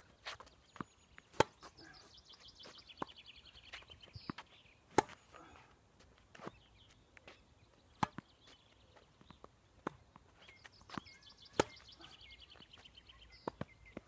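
Tennis ball struck back and forth by rackets in a rally: four sharp hits about three and a half seconds apart, with fainter bounces and footsteps between them. A songbird twice sings a rapid trill that falls in pitch.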